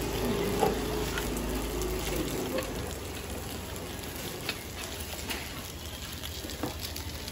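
Oil sizzling steadily as small round cakes fry in a multi-hole cast-iron pan, with a few sharp clicks of a metal skewer against the pan as the cakes are turned.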